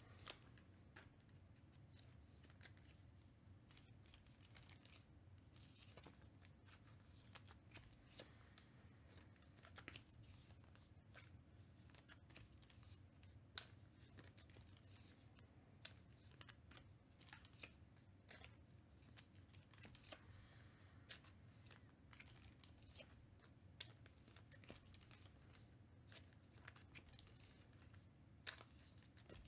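Faint handling of trading cards being sorted and stacked: scattered soft clicks and rustles at irregular intervals, with one sharper tick about halfway through, over a low steady room hum.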